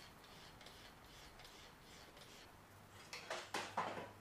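Hand trigger spray bottle squirting cleaner onto an aluminium boat hull in quick faint spritzes, about three a second. About three seconds in, a cluster of louder short scuffs follows.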